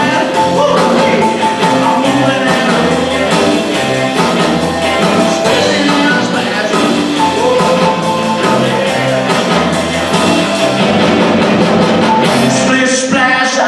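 Live rock and roll band playing loud: piano, electric guitar, bass guitar and drum kit keeping a steady beat.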